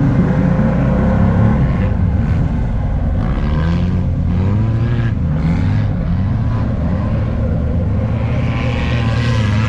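Side-by-side UTV engine running hard, its pitch rising and falling over and over as the driver works the throttle. Heard from inside the open cab.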